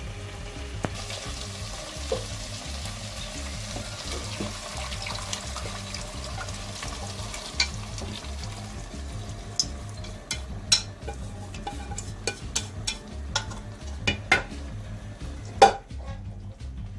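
Food sizzling in a cooking pot while it is stirred, with a utensil clicking and knocking against the pot many times in the second half, one knock louder than the rest near the end. Quiet background music underneath.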